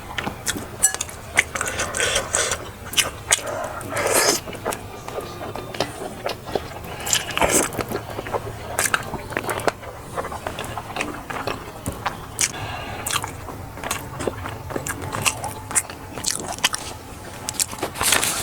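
Close-miked eating: a person biting and chewing food, with many short, crisp clicks.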